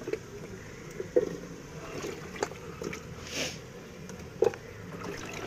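Chunks of raw potato and cooking banana dropped by hand into a metal pot of fried onions and tomatoes: a handful of short, separate knocks and plops.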